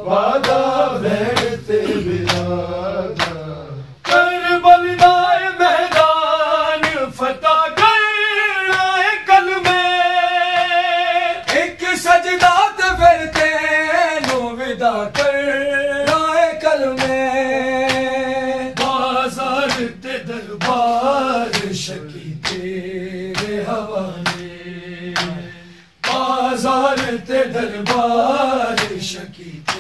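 A man sings a Shia noha, a lament, in long, wavering, drawn-out lines. Regular sharp beats keep time under the voice.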